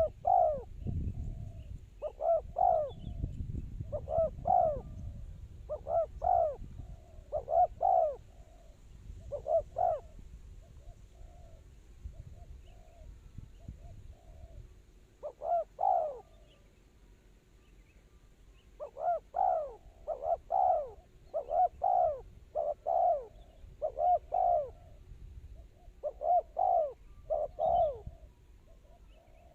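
Spotted doves cooing: short arching coos in groups of two or three, repeated every second or two, with a pause of a few seconds in the middle. A low rumble sits under the first few seconds.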